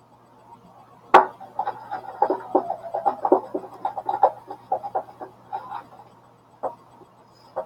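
A spoon stirring slime in a bowl: a sharp knock about a second in, then a quick run of clicking, knocking and scraping for several seconds, with two more knocks near the end.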